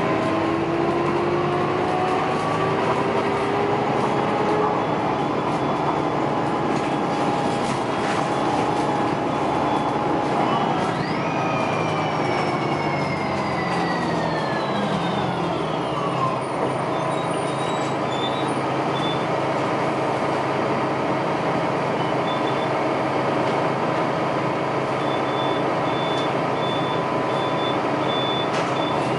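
Articulated city bus heard from inside the cabin: engine and drivetrain running over steady road noise, their pitch rising as the bus accelerates over the first few seconds. Around the middle a high whine rises and then falls away over about five seconds as the bus slows, and faint short high beeps repeat in the second half.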